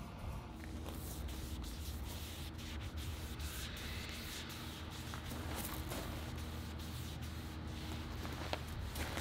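Foam brush spreading teak oil across a wooden tabletop: soft, repeated brushing and rubbing strokes. A steady low hum runs underneath.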